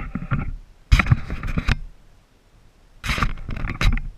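Handling noise from the camera being gripped and moved, with rubbing and knocking on its housing in three bursts, the longest about a second in.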